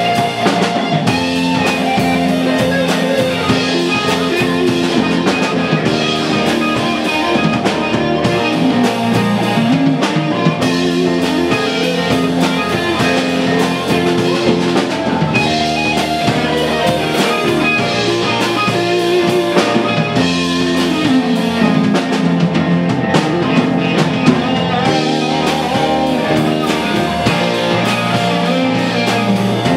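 Live rock band playing an instrumental passage: a lead electric guitar plays a melodic line with bent, gliding notes over drum kit and bass guitar.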